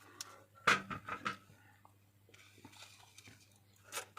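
A few short clicks and scrapes of small phone parts and tools being handled on a workbench, the loudest about two-thirds of a second in and another near the end, over a faint steady low hum.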